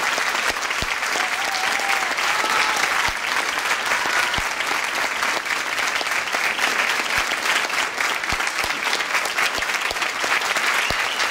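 Crowd applauding steadily after a choir song, with a few brief calls heard over the clapping.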